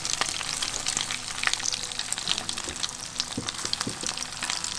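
Coconut-crusted wahoo bites frying in a pan of very hot oil: a steady sizzle with a dense crackle of small pops.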